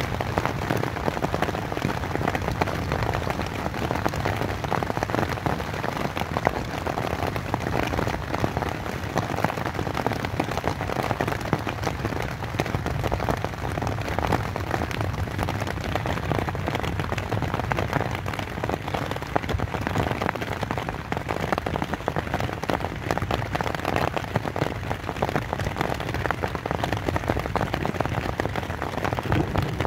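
Rain falling steadily on a tent, a dense, even patter of countless drops drumming on the fabric.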